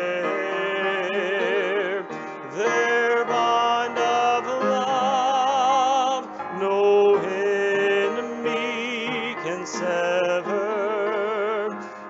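A hymn being sung: voices holding long notes with a marked vibrato, phrase after phrase, with brief breaths between lines.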